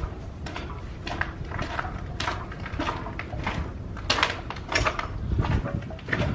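Footsteps inside a small, hard-walled tunnel: a string of short scuffing steps, with a steady low rumble from wind or handling on the microphone.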